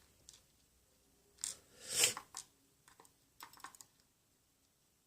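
Small metal lock pins being handled and moved about on a work surface: a few soft clicks and short scrapes, the loudest about two seconds in and a small cluster of ticks near the middle.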